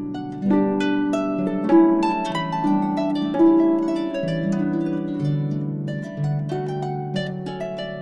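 Harp music: a steady flow of plucked notes, low bass notes under a higher rippling line.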